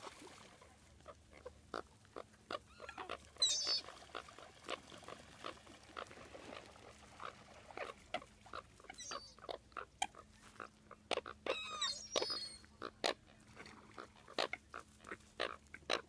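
American coots calling at close range: a string of short, sharp calls, one or two a second, with a brief high twittering twice, about a third of the way in and again near three quarters.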